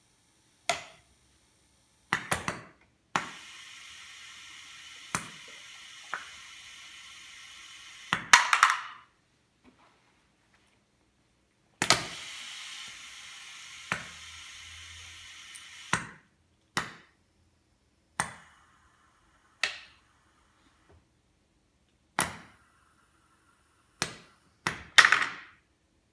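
Pneumatic cylinders on a PLC-controlled training station switching: a string of sharp clacks at irregular intervals, several followed by a short puff of exhausting air. Twice there is a steady hiss of compressed air, once for about five seconds and once for about four, each ended by a clack.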